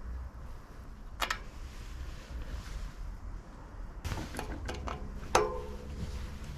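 A sharp click about a second in, then a run of clicks and knocks, ending in a loud knock about five seconds in with a brief metallic ring, over a low steady rumble. These are the sounds of tubeless tyre-fitting parts and the wheel being handled.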